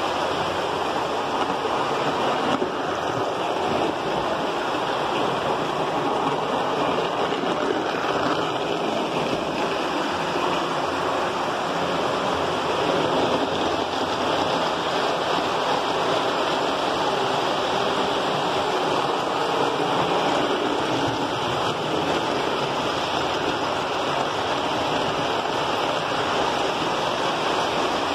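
Model trains running on tinplate track: a steady rumble and whir of metal wheels and electric motors that holds even throughout.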